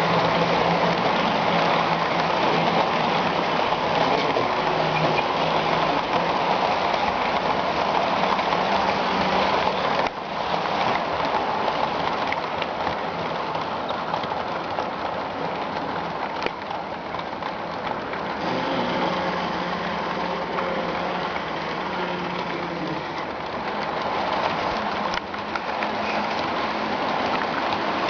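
HO-scale model trains running on the layout's track: a steady, dense rushing of wheels and motors with a faint low hum. The level drops slightly and suddenly about ten seconds in.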